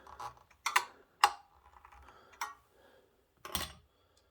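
A few sharp clicks and taps of small hard parts being handled, about four over three seconds; one, the loudest, leaves a short ring.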